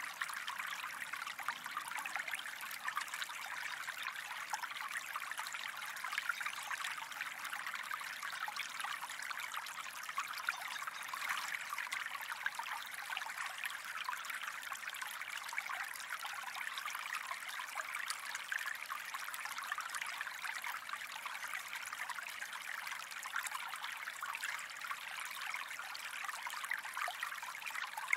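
Gentle stream flowing: a steady trickling and babbling of running water, with fine splashes all through and no change in strength.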